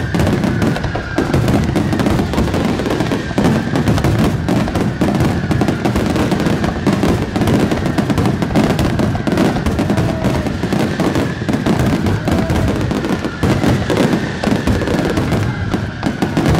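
Fireworks display barrage: aerial shells and ground fireworks firing so rapidly that the bangs and crackles run together without a break. A faint high whistle runs under it, drifting slowly lower.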